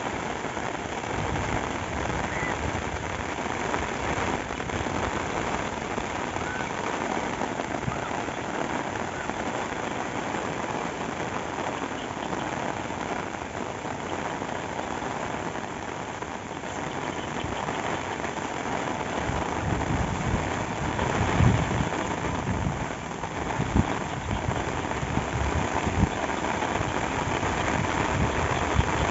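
Steady rain falling and pattering on surfaces. From about two-thirds of the way in, low rumbling comes in, with a few louder thumps.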